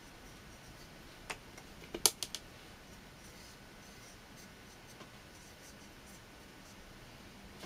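Paintbrush stroking wet watercolour paint across paper, a faint scratchy brushing. A sharp click about a second in and a quick run of four louder clicks about two seconds in.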